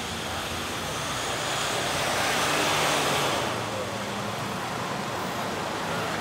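City street traffic, with a car passing close by: its tyre and engine noise swells about two to three seconds in and then fades back into the steady traffic hum.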